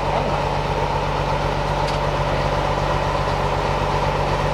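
A boat's engine idling, a steady low hum that doesn't change.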